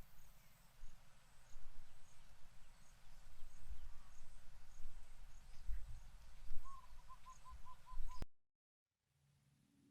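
Wind rumbling and buffeting on the microphone, with a bird giving a quick run of about seven short, even notes near the end. The sound then cuts off abruptly.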